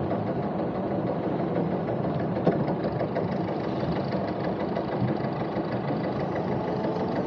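Sailing boat's engine running steadily, with a brief sharp tick about two and a half seconds in.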